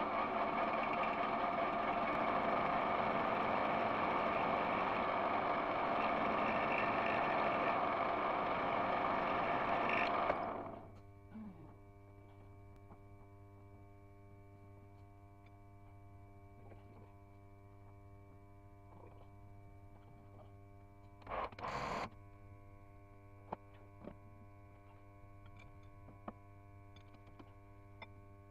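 Lathe running, then switched off about ten seconds in and quickly falling away. A steady electrical hum remains, with a few faint clicks and a brief burst of noise about two-thirds of the way through.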